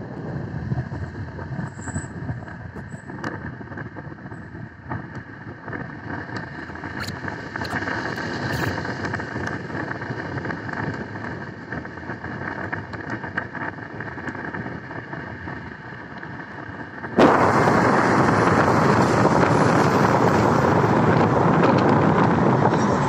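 Steady road noise of a moving car heard from inside, with tyres hissing on a wet road. About 17 seconds in it jumps abruptly to a much louder, steady rush of wind and road noise.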